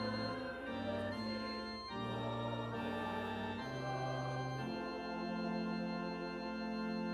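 Organ playing slow hymn chords that change every second or so, then settling on one long held final chord for the last couple of seconds.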